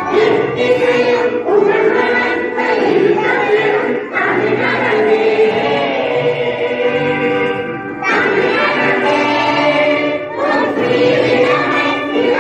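A large group of schoolchildren singing a prayer together in unison, as a chorus of young voices. The singing runs in sustained phrases with brief breaks about four, eight and ten seconds in.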